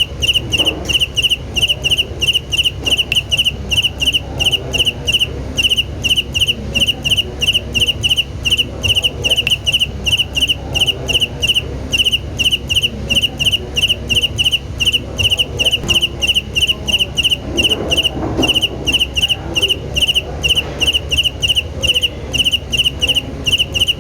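A cricket chirping steadily: short, high chirps repeating evenly about two to three times a second, over a low steady hum.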